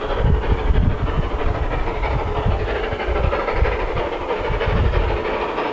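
Steam tank locomotive approaching, working steam: rhythmic exhaust beats, a few a second, over a steady hiss.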